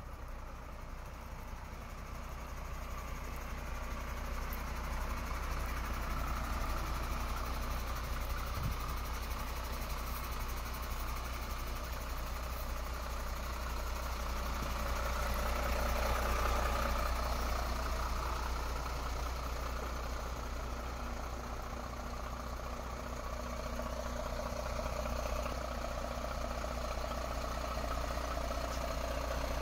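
MAN TGM 18.340 truck's six-cylinder diesel idling steadily, with a low, even hum.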